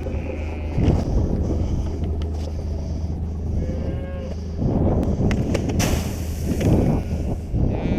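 Cattle mooing, with one drawn-out, rising call about four seconds in and shorter calls near the start and end, over a steady low hum and a few sharp clicks.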